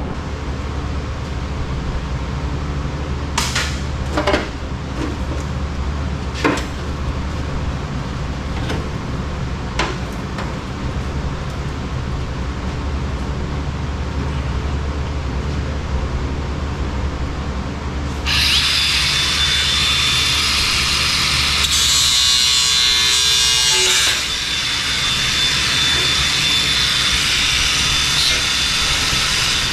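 Power tools working on the metal of a scrap generator. A steady low running hum carries a few sharp metallic clicks. About two-thirds of the way through, a louder hissing, high-pitched tool sound starts and runs on, strongest for a couple of seconds soon after it begins.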